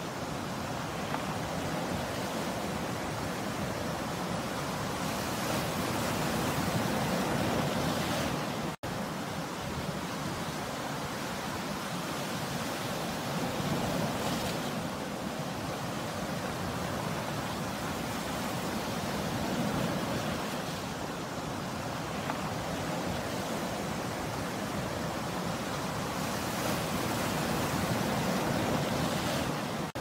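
Sea surf breaking and washing up the shore, a steady rush that swells and eases every several seconds as waves come in. A split-second gap cuts the sound about nine seconds in.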